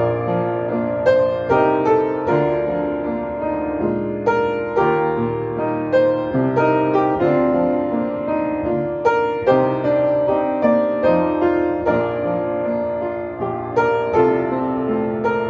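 Upright piano played solo: a hymn arrangement of held chords with a melody over them, notes struck and left to ring.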